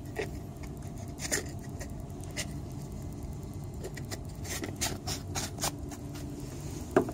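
Light clicks and rustles of hands handling lab items, a folded weighing paper and a plastic reagent bottle, scattered through and bunched together near the end, over a low steady hum. A brief voice-like sound comes right at the close.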